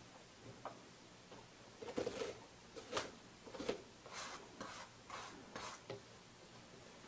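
About eight short, faint scraping strokes with light metallic clicks: a heated nakwha burning iron rubbed against a soot-scorched pad, the way the iron is wiped and tested on a scrap surface before burning.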